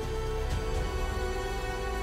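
Background music: a steady instrumental track with sustained tones over a deep bass.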